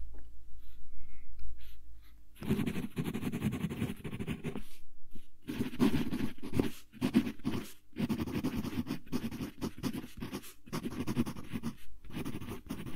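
Close-miked wooden pencil writing on lined paper: scratchy strokes in short runs with brief pauses between words, starting about two seconds in.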